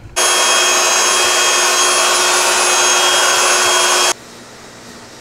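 Electric air pump running steadily with a constant whine, blowing air into an inflatable donut pool float; it stops abruptly about four seconds in.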